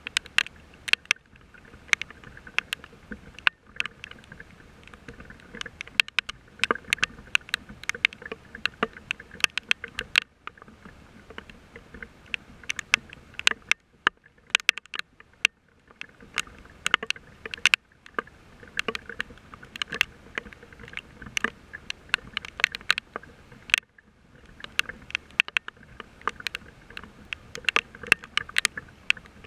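Rain falling close to the microphone: large drops strike a nearby surface in irregular sharp taps, several a second, over a steady patter of rain.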